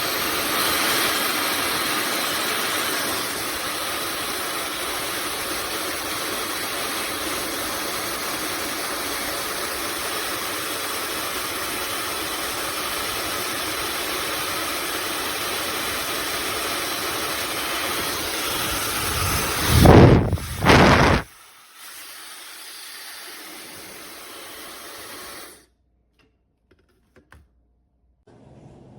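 Handheld hair dryer blowing with a steady, loud hiss. About 20 seconds in there are two loud knocks, and the dryer stops; a fainter steady hiss carries on for a few seconds, then cuts off abruptly.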